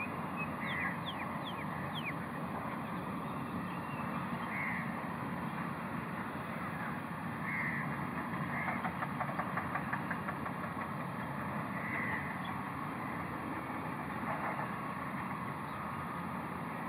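Steady low rumble of distant road traffic, with short bird calls on top: a few quick falling notes about a second in, then brief calls every few seconds and a quick rattling run around the middle.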